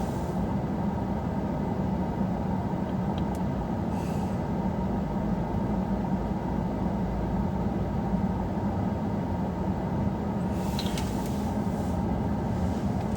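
Steady low rumble and hiss of a car running, heard from inside the cabin.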